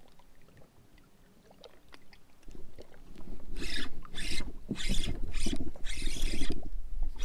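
Spinning reel and rod working against a freshly hooked fish. After a quiet start, a low handling rumble comes in about two and a half seconds in, then a run of short noisy bursts about twice a second.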